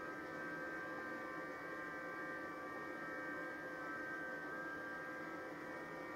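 Quiet, steady electrical hum with several faint steady whining tones held at fixed pitch: room tone of powered equipment.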